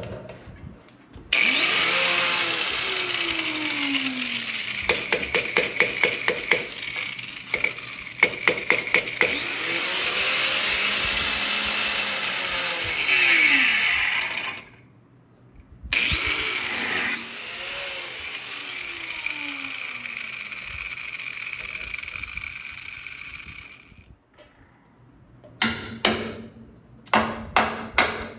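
Angle grinder with a cutoff wheel cutting through a steel truck frame, in two long runs with a short stop between them. Near the end come several sharp knocks on metal, about two a second.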